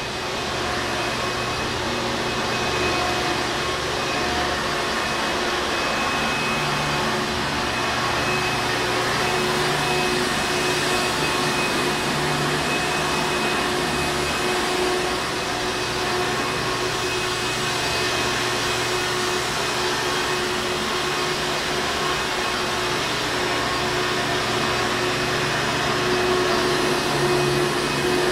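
Hoover Encore Supreme vacuum cleaner running steadily: a continuous rushing noise with a few steady whining tones.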